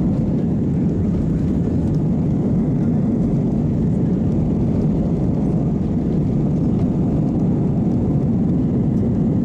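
Airbus A320 cabin noise during the takeoff roll: the engines at takeoff thrust and the aircraft rolling fast on the runway make a steady, loud, low rumble.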